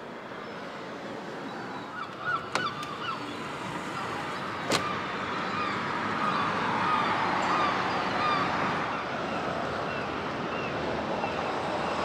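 Gulls calling again and again over a steady rush of strong wind, with a few sharp clicks near the start and one about five seconds in.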